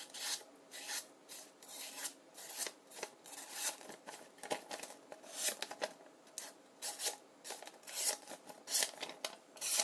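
Camillus folding knife blade slicing through paper in repeated rasping strokes, about one every two-thirds of a second.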